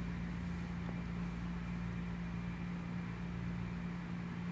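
Room tone: a steady low hum with a faint even hiss, unchanging throughout.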